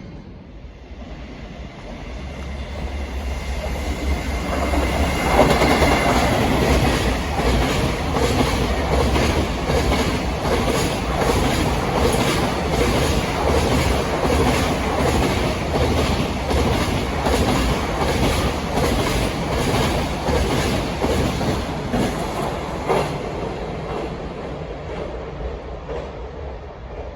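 A JR Freight train passes: the locomotive's low rumble builds up, then the wagons clack steadily over the rail joints, about two clicks a second, before the train fades away.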